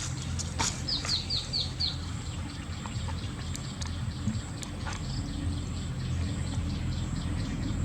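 Bird chirping: a quick run of five short falling notes about a second in, over a steady low hum and a few faint clicks.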